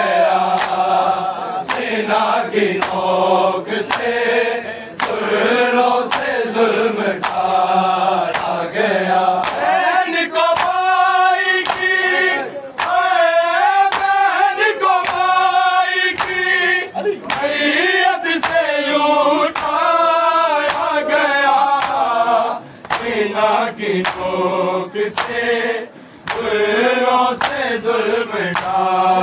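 Men chanting a noha, an Urdu lament, in a sung melody. Sharp, regular strikes about twice a second keep the beat under the voices.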